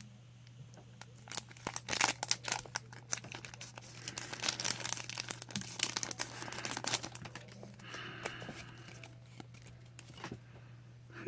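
Foil wrapper of a Magic: The Gathering booster pack crinkling and tearing as it is opened: dense irregular crackles, loudest in the first several seconds and softer toward the end, over a steady low hum.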